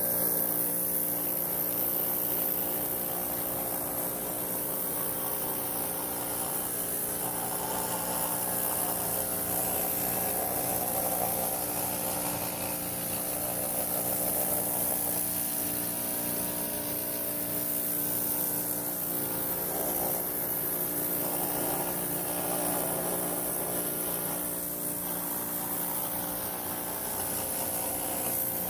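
Pressure washer running steadily: a constant motor and pump hum under the hiss of the high-pressure water jet, spraying the door seals to test them for leaks.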